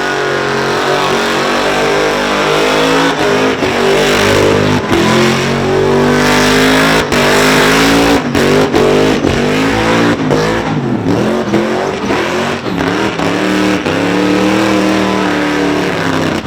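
Supercharged Holden Commodore engine held high in a burnout, revs rising and falling, over the hiss of spinning tyres. It cuts off suddenly at the end.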